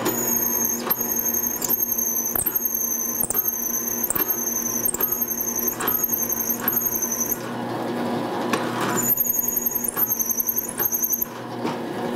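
Counterbore with pilot cutting a counterbore in a drilled hole on a drill press: a high, wavering chatter squeal with a regular tick about every 0.4 s over the steady hum of the drill press motor. The squeal stops about seven seconds in, then resumes for about two seconds near the end.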